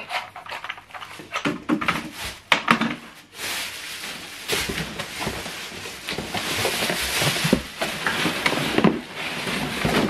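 A few clicks and knocks as a plastic vacuum attachment is handled. From about three seconds in comes continuous rustling and crinkling of a cardboard box and plastic wrapping as the vacuum cleaner body is lifted out of its packaging.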